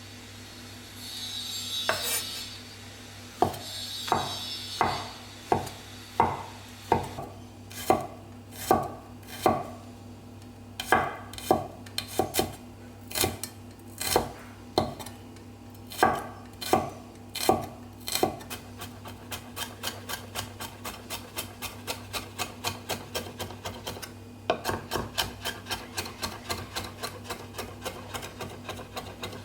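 A knife chopping on a wooden cutting board. A short scrape first, then steady chops about one and a half a second, which change about two thirds of the way in to quicker, lighter chops about three a second.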